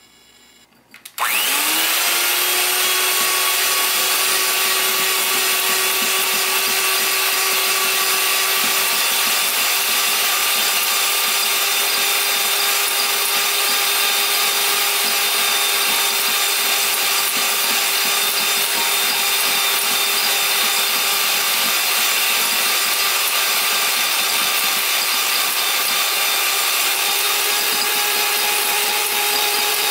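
Electric hand mixer switched on about a second in, its motor pitch rising briefly as it gets up to speed, then running steadily as its twin beaters whip instant coffee, sugar and hot water in a glass bowl.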